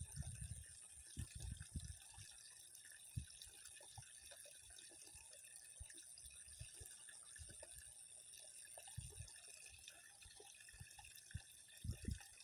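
Near silence with faint, scattered drips and small plops of water over a steady high-pitched hum.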